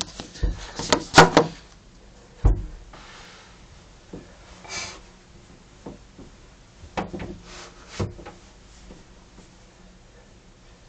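Knocks, clicks and rustling handling sounds, busiest in the first two seconds, with one heavy thump about two and a half seconds in and a few more clicks later.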